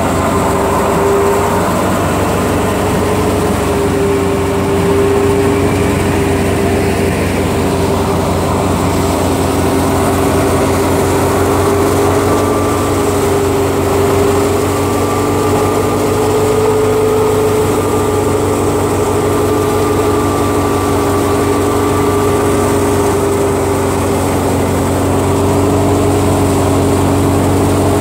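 Wheat thresher running steadily: a loud, constant machine drone with a steady hum.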